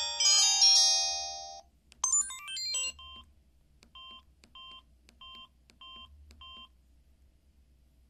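Samsung SGH-C260 phone playing its built-in message tones: a chiming polyphonic melody that fades out in the first second and a half, then a short quick run of beeping notes about two seconds in. After that come about seven short identical keypad beeps, roughly two a second, as the phone's buttons are pressed to back out of the menus.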